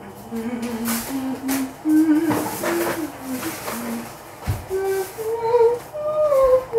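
A person humming a wandering tune, a new note every half second or so, with a few light clicks and a soft thump about four and a half seconds in.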